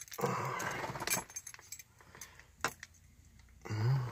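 Car keys jangling and clinking on their ring as they are handled and the key is fitted into the steering-column ignition lock, with a few sharp clicks. A brief low hum near the end.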